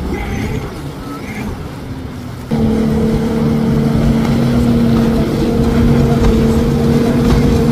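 Jet ski engines running at speed. At first a distant one is heard under wind and water noise; about two and a half seconds in, a sudden cut brings a much louder, closer jet ski with a steady, unchanging engine note.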